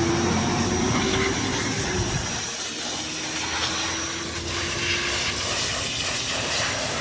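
SSR 125cc dirt bike's four-stroke engine running steadily, newly fitted with a replacement carburetor after it would not start.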